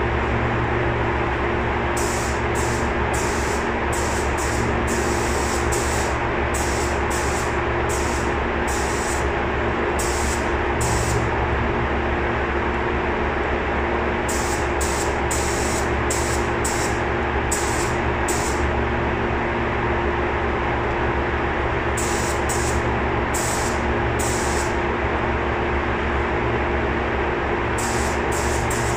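Air-fed spray gun hissing in short bursts of a fraction of a second each, in runs of several, as primer is sprayed onto the aluminium underside of a Sikorsky helicopter, over a steady low machine hum.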